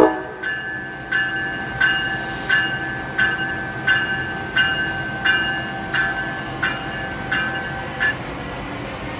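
Electronic bell of an Amtrak ACS-64 electric locomotive ringing as the train gets under way. It gives about a dozen evenly spaced strokes, roughly one and a half a second, and stops about eight seconds in. A brief hiss of air comes about two and a half seconds in.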